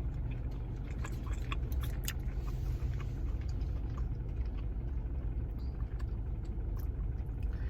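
Low, steady rumble of an idling car heard from inside the cabin, with a few faint clicks and taps in the first couple of seconds.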